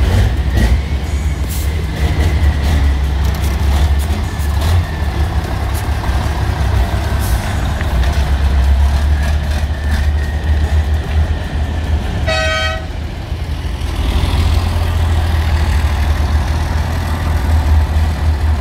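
Heavy diesel engines of race trucks running at low speed, a steady deep drone. About twelve seconds in comes one short horn toot.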